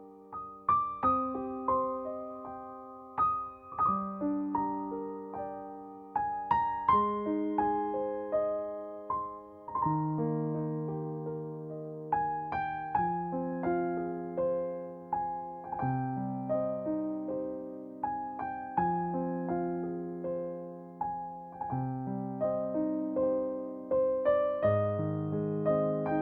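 Background music: solo piano playing slow, gently struck notes and chords, each ringing and fading before the next.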